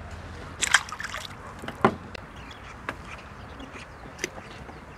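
Brief splashing and a few sharp knocks as a just-landed crucian carp is handled in a landing net at the water's edge, with a cluster of splashes about half a second in and a louder knock near the two-second mark.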